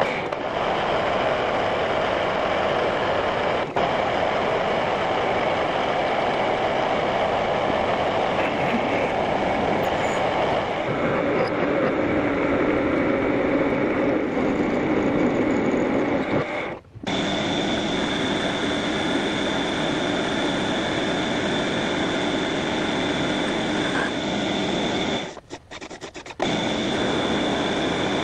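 Metal lathe running while a turning tool cuts a spinning metal bar, a steady cutting and machine noise. It breaks off briefly twice, and after the first break a steady high whine sits on top of it.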